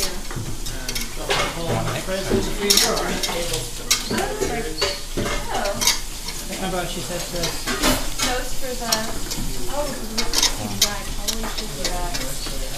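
Busy kitchen clatter of knives chopping on wooden cutting boards and utensils knocking, scattered sharp clicks throughout. Near the end a wire whisk stirs a roux sauce in a stainless steel pan on the stove.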